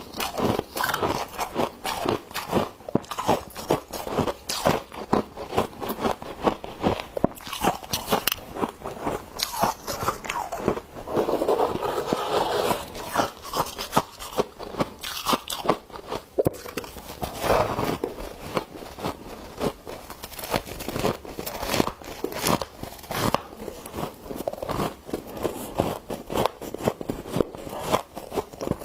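Frost crunching in a dense, uneven run of crisp crunches, with a longer scraping stretch about twelve seconds in.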